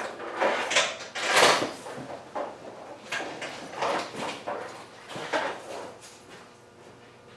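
Rummaging through tools and drawers: a string of irregular scraping and clattering noises that die away after about six seconds.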